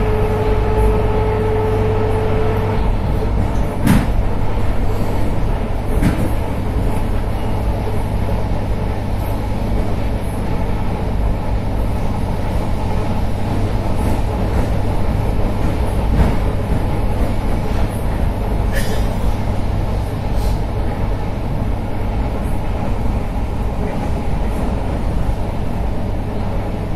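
ER9M electric multiple unit running along the track: a steady low rumble and hum. A pitched tone fades out in the first few seconds, and a few sharp knocks come about four and six seconds in, with another near the middle.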